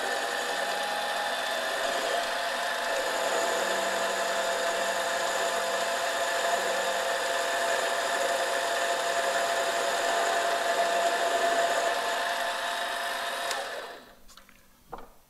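Small benchtop mini lathe running with a steady motor whine while it turns a little more off a strut bushing's shoulder. The motor stops near the end, leaving a few light clicks.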